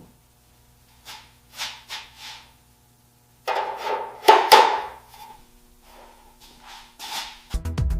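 Light taps and knocks on small metal parts of an old toy car, each with a brief ring. The loudest cluster comes about halfway through. Electronic music starts just before the end.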